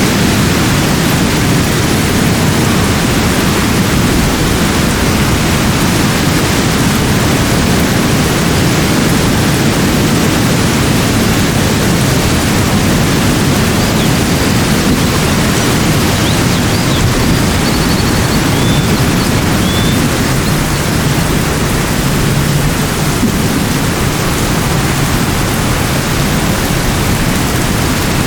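Steady, loud, even rushing noise of a nature soundscape, unchanging throughout and heaviest in the low range. A few faint short high chirps sound over it around the middle.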